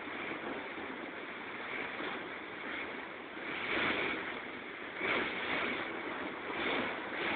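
Strong wind and rough sea heard from aboard a ship: a steady rushing noise that swells in surges, about halfway through and a few times after.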